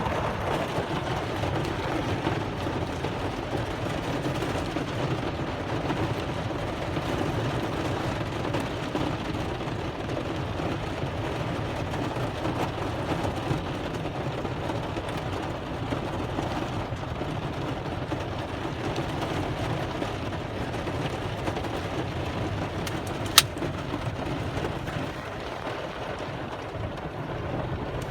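Very heavy rain pouring down in a dense, steady hiss that holds its level throughout, with a single sharp click about 23 seconds in.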